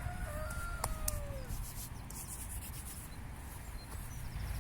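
Wind rumbling on the microphone at the lakeside, with a faint call that falls in pitch during the first second and a half.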